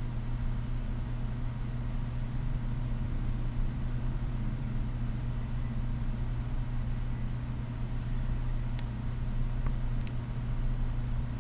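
Steady low hum with no change in level, with two faint sharp clicks near the end.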